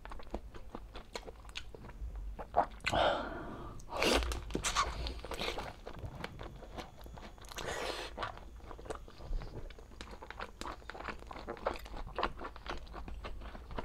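A person chewing soft braised pork humba, pork belly cooked in Coca-Cola: a steady run of short mouth clicks and smacks, with a few louder bites about 3, 4 and 8 seconds in.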